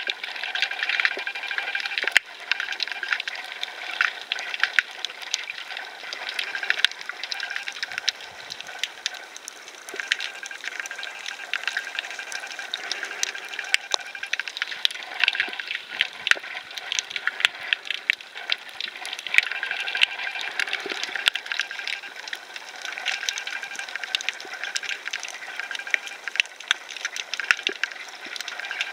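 Underwater ambience: a steady wash of water noise with frequent sharp clicks and crackles at irregular intervals.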